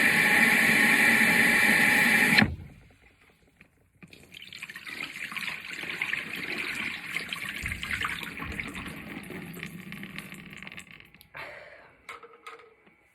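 Kitchen tap running hard into a sink, shut off about two and a half seconds in. From about four seconds water runs again, quieter and uneven, as a shaker bottle is rinsed under it.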